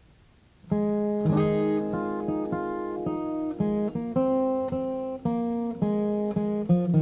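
Background music: acoustic guitar strummed and picked, starting less than a second in after near silence, with a chord change every half second or so.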